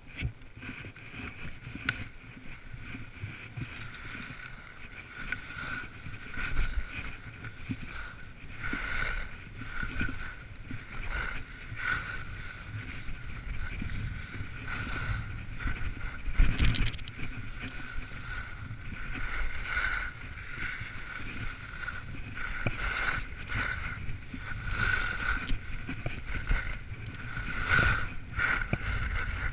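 Wind buffeting an action camera's microphone together with the steady hiss and scrape of snowboards carving through packed snow, with one louder knock about sixteen seconds in.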